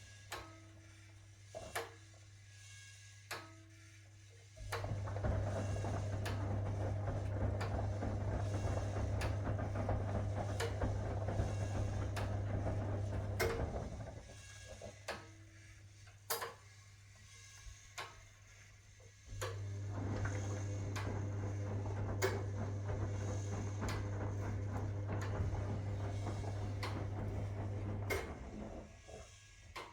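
1961 AEG Lavamat Noris washing machine in its wash cycle: the drum motor runs with a steady hum for about nine seconds, stops for about five, then runs again for about nine. During the pauses there are scattered short knocks.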